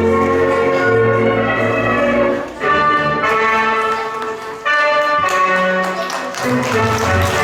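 Recorded orchestral music played over the sound system, sustained chords changing every second or so, with a brief drop about two and a half seconds in and a louder re-entry just before the middle.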